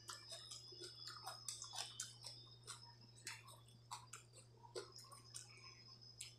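Soft, close eating sounds: scattered wet clicks and squelches as fingers mix water-soaked rice (pani bhat) in a steel plate, along with chewing of a mouthful.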